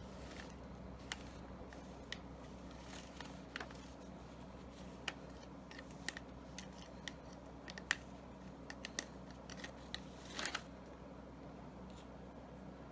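Scattered light clicks and taps of Beretta A400 semi-automatic shotgun parts being handled during disassembly and cleaning, coming at irregular times, with a short run of clicks about ten seconds in.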